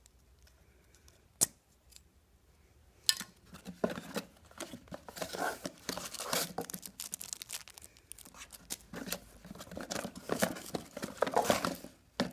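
Cardboard and plastic packaging rustling and crinkling as a hand digs through a small cardboard box, with many sharp clicks and snaps. It starts about three seconds in after a couple of lone clicks, eases briefly midway, and stops just before the end.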